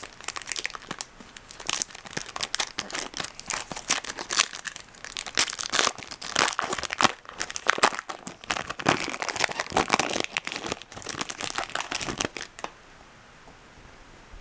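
Foil wrapper of a Topps Chrome baseball card pack crinkling and tearing as it is opened by hand, in quick irregular crackles that stop near the end.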